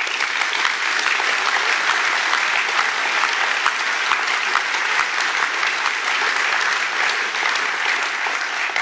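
Large audience applauding in a hall: dense clapping that breaks out suddenly and keeps up steadily.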